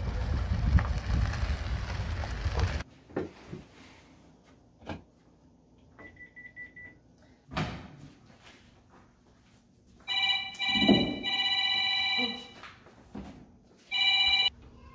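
Wall-mounted telephone ringing with an electronic trill: a long ring of about two and a half seconds starting about ten seconds in, then a short ring near the end. Before it, a low rushing outdoor noise on the microphone for the first few seconds, then a few light knocks.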